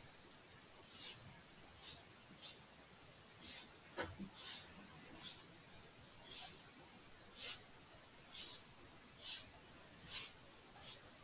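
Stylus scratching on a writing tablet in short strokes, one every half second to a second, as words are handwritten. A single sharp tap about four seconds in.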